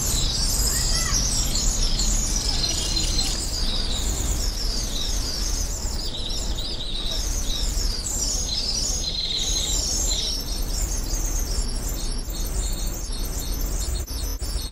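A dense chorus of many small birds chirping and twittering, with high, rapid overlapping calls, over a steady low rumble.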